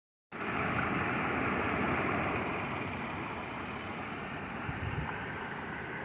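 Water splashing over a low rock weir into a pond: a steady rush, a little louder for the first two seconds or so. A brief low rumble comes about five seconds in.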